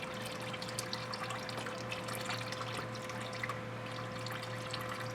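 Engine oil trickling and dripping out of a 2025 Toyota 4Runner's oil filter housing through its built-in drain funnel, a steady patter of small drips. A steady low hum runs underneath.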